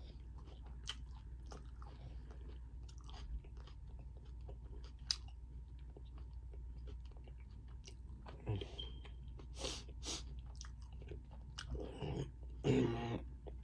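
Close-miked chewing and mouth sounds of a person eating a taco, with scattered small clicks and crunches. A short hummed voice sound comes near the end.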